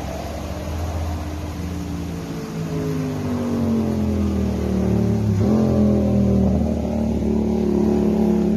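A motor vehicle engine running close by and getting louder. Its pitch slides down for a couple of seconds, jumps about five seconds in, then holds steady.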